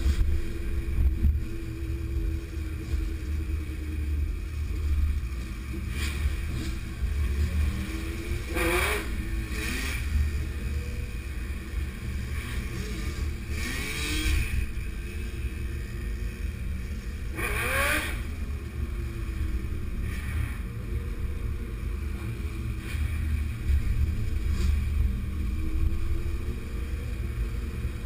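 Several motorcycles riding in a group, engines running, with revs rising in pitch about 9, 14 and 18 seconds in.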